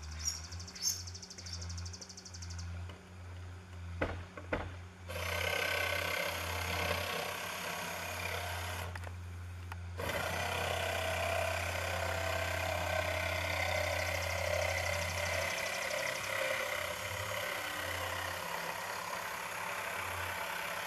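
Cordless jigsaw cutting a curve through plywood roof decking. After a few knocks as the saw is set in the cut, it starts about five seconds in, stops briefly near the middle, then cuts on steadily.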